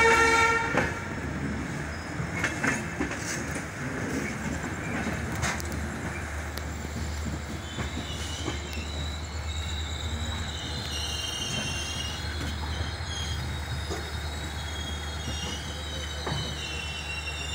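An Indian Railways express train's coaches rolling out of a station: the locomotive's horn cuts off about a second in, then a steady rumble of the wheels with a few sharp clacks over rail joints and points. From about halfway through, the wheels give a wavering high squeal.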